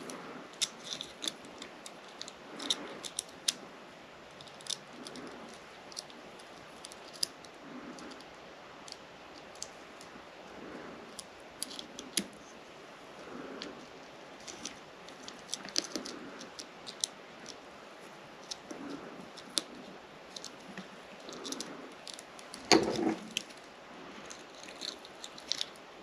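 Scattered small clicks and ticks of hands handling a BOA lacing dial and its cable while rethreading the cable through the dial, with one louder knock near the end.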